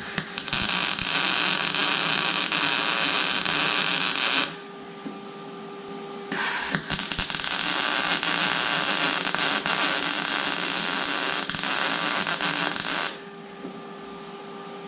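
Wire-feed welder arc-welding steel square tubing to a steel base plate, a steady crackling hiss. It runs in two passes, the first about four seconds long and the second about seven, with a short pause between them. Under and between the passes is a low electrical hum.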